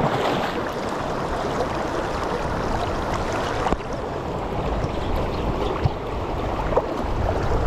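Fast mountain river rushing over a rocky bed, a steady noise of riffles close to the microphone.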